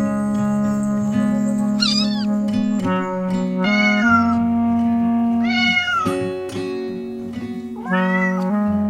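A cat meowing four times, each call short and falling in pitch, over background music of steady held notes.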